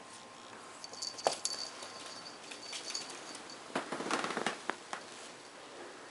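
Pug puppy moving about on a hardwood floor: scattered clicks and scuffs, with a short burst of scrabbling about four seconds in.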